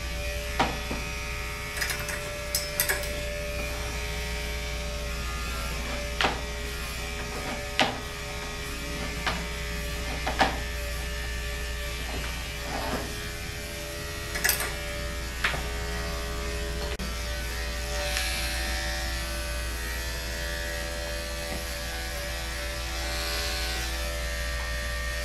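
Andis electric dog-grooming clipper with a four guard comb running steadily as it is pushed against the lie of the coat on the dog's head, with a few short clicks scattered through it.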